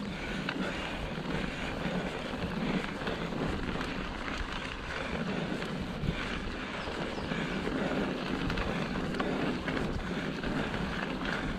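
Mountain bike rolling along a dirt and gravel track: a steady rumble of tyres on the surface with light rattles from the bike, and wind noise on the microphone.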